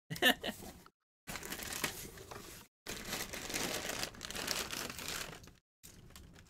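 Packing paper crinkling and rustling as it is pulled out of a cardboard box, in several stretches with short breaks between.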